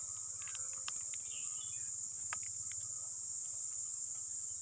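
Steady high-pitched chirring of insects, with a few faint clicks as a rubber ear tip is pushed onto a wired earphone.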